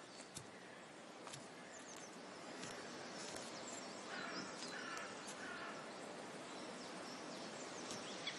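Faint outdoor wilderness ambience: a steady noise bed with scattered short bird chirps, and a short run of three or four arching calls about halfway through.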